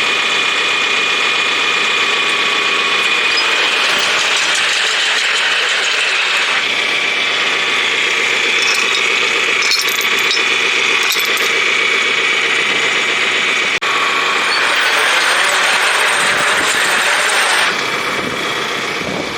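An engine runs steadily under the continuous mechanical clatter of a Craven Welding 14×30 hay stack mover working. The clatter is a ratcheting, gear-like rattle that eases slightly near the end.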